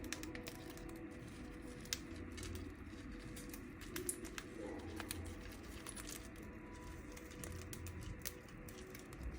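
Scattered light clicks and taps, irregular and several a second, over a low steady hum.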